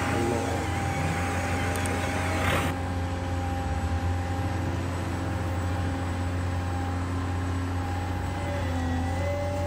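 Steady engine-like rumble from RC construction models, with a higher whine that wavers in pitch near the end. The sound changes about two and a half seconds in.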